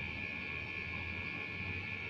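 Steady background noise: a low hum with a higher hiss above it, unchanging, with no distinct events.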